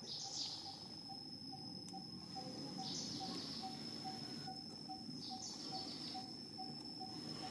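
Insect chorus: a steady high-pitched insect drone, with a louder shimmering call swelling about every two and a half seconds and a faint low note pulsing about twice a second beneath it.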